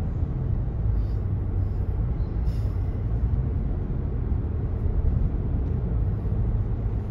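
Steady low rumble of a moving road vehicle, even throughout with no distinct events.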